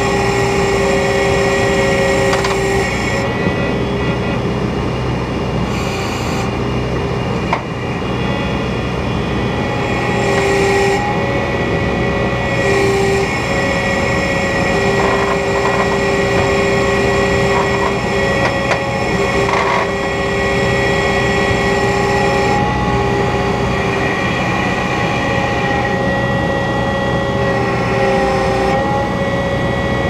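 New Holland 170S skid steer running steadily at low speed, an even engine drone with steady whining tones that drop out and come back every few seconds.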